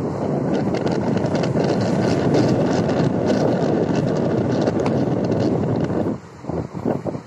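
Strong wind buffeting the microphone, a loud rumble that drops out briefly about six seconds in, over the wash of waves breaking on the shore.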